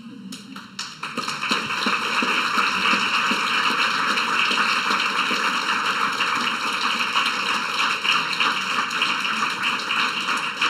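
Audience applauding: many people clapping at once, building up about a second in and holding steady.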